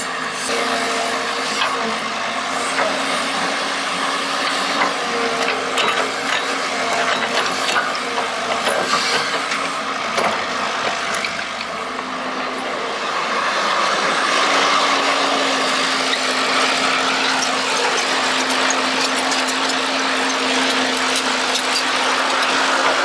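Excavator running while digging: a steady mechanical drone with scattered scrapes and knocks, growing louder about fourteen seconds in.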